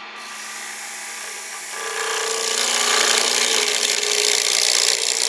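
Skew chisel cutting a spinning cherry chair rung on a wood lathe: a hiss that builds over the first two seconds, with a steady humming tone joining about two seconds in. The turner doesn't like this sound and cures it by pressing the skew's bevel harder against the wood, so it is the sign of too little bevel pressure on the cut.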